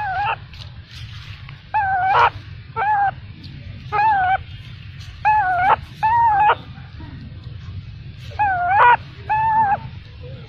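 Infant macaque crying: about ten short, high, wavering cries, coming singly and in quick pairs, over a low steady hum.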